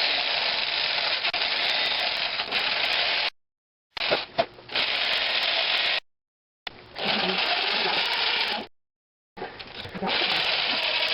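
Electric jigsaw running and cutting through a pumpkin's rind, a steady buzzing in four runs of two to three seconds each with short breaks between.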